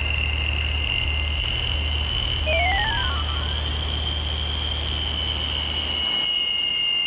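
Electronic ambient score: a steady high whine over a low hum, with one rising and one falling sweep crossing each other near the middle. The low hum cuts off about six seconds in.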